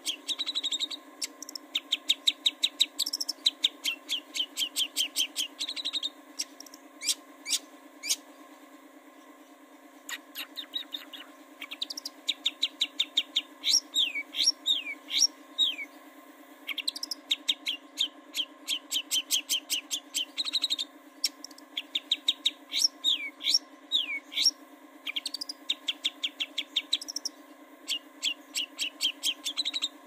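Long-tailed shrike (cendet) singing in bursts of rapid, sharp repeated notes, several a second, mixed with falling slurred notes. There is a short lull about a third of the way in. A steady low hum runs underneath.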